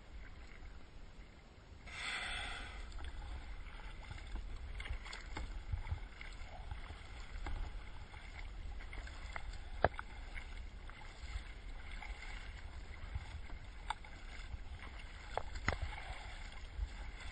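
Kayak being paddled on open sea: water sloshing and splashing around the paddle and hull, with a few sharp clicks, and low wind rumble on the microphone.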